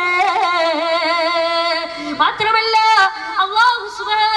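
A boy's high voice chanting melodically into a microphone, holding long notes with a wavering, ornamented pitch, with a short break about two seconds in.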